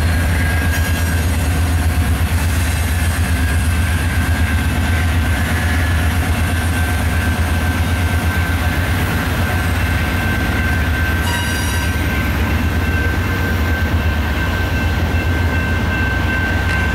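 Autorack freight cars rolling past at steady speed: a continuous low rumble of steel wheels on the rails, with a thin wheel squeal holding on one high pitch.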